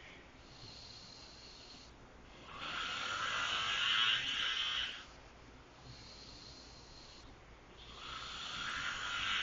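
A man snoring loudly in his sleep: two long snores about five seconds apart, each lasting over two seconds, with quieter breathing between them.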